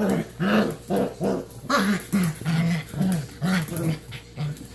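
Five- to six-week-old puppies play-fighting, with a quick run of about ten short growling yaps.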